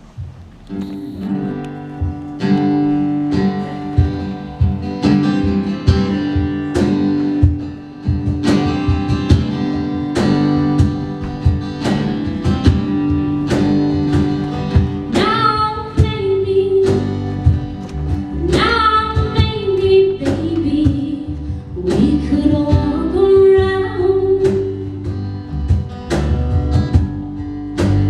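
A band playing a pop song, with guitar, piano, bass and cajon keeping a steady beat; a woman starts singing about fifteen seconds in.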